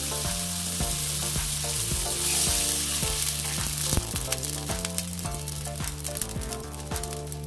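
Beef large intestine (daechang) sizzling in its rendered fat in a hot nonstick wok. Milky bone broth is poured in: the sizzle swells a couple of seconds in, then turns to rapid fine crackling and spattering as the liquid meets the hot pan.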